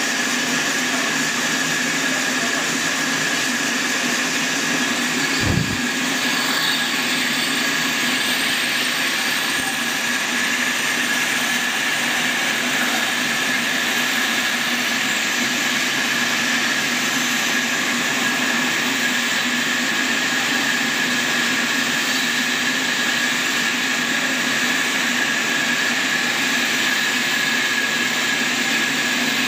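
Band sawmill running and cutting lengthwise through a large log: a steady machine noise of motor and blade, with a constant high-pitched tone over a lower hum. A single brief low thump comes about five and a half seconds in.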